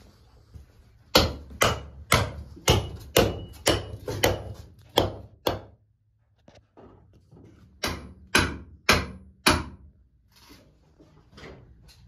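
Repeated sharp impacts: about ten hard knocks at roughly two a second, a pause, then four more.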